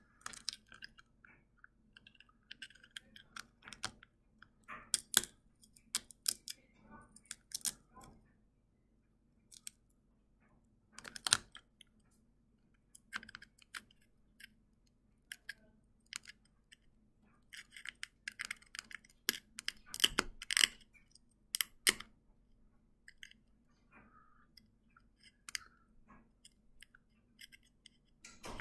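A needle scratching and picking at a brittle sugar honeycomb (dalgona) candy: irregular small clicks and crunchy scrapes, coming in bunches of rapid ticks with short pauses between.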